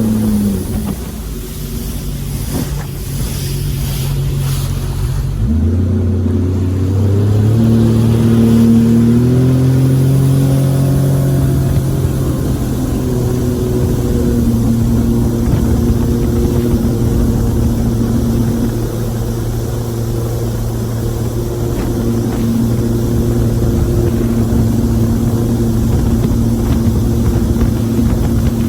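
Jet boat engine running. It drops back just after the start, then speeds up from about five seconds in and settles into a steady cruise.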